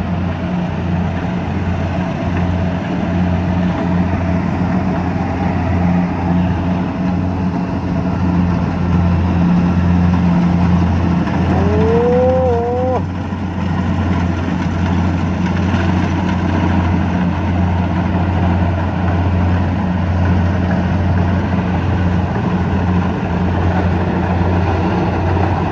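Kubota DC70 combine harvester's diesel engine running steadily under harvesting load, a constant low hum with the machine's threshing noise over it. A brief wavering tone rises over it about halfway through.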